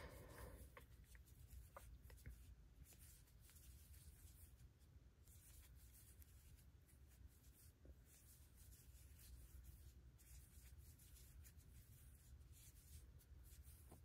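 Near silence: faint rubbing and scratching of a crochet hook pulling double-stranded cotton yarn through stitches, with a few faint clicks in the first couple of seconds over a low steady room hum.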